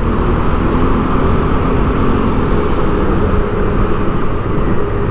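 Steady city-street traffic noise: vehicle engines and tyres in a continuous low rumble.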